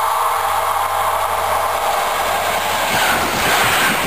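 Regional passenger train approaching on the track with a steady drone. From about three seconds in it passes close by with a loud rumble and rhythmic wheel clatter over the rail joints.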